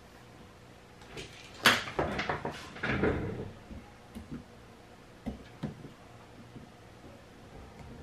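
Clicks, knocks and scraping from a hand cutter working at the metal strip connections of a lithium-ion scooter battery pack while the pack is handled. A burst of knocking and scraping about two seconds in, then a few single clicks.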